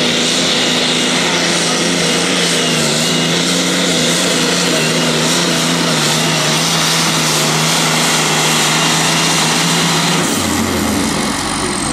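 Modified pulling tractor's engines running flat out under load as it drags the weight-transfer sled down the track: a loud, steady drone. About ten seconds in it gives way to a lower engine note.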